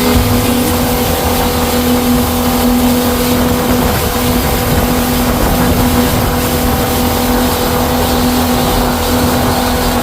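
Motorboat engine running at a steady speed, with a constant hum over a loud rush of wind and water.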